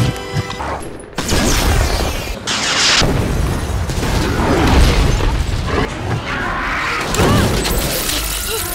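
Cut-up action-film sound effects: booms and mechanical clatter, loud and dense, changing abruptly at several quick edits.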